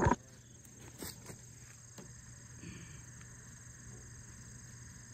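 Insects trilling steadily in a high, even drone, with a few faint clicks about a second in as a trail camera's mounting strap is handled on a wooden post.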